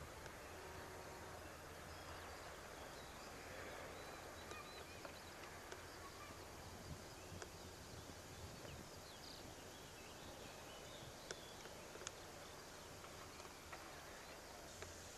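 Faint open-air ambience: a low steady hiss with a few faint, short high chirps and occasional faint clicks.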